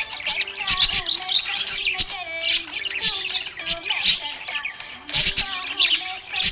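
Small pet parrots chirping and squawking continuously in quick, irregular, overlapping calls.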